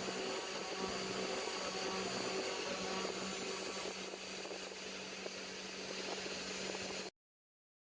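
Cheap air-assist pump on a CNC 1419 machine running, a steady hum with an even hiss of blowing air; it stops abruptly about seven seconds in.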